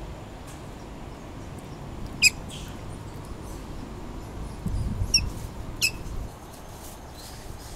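Three short, high squeaks that fall in pitch, one about two seconds in and two close together a little past the middle, over a low steady rumble.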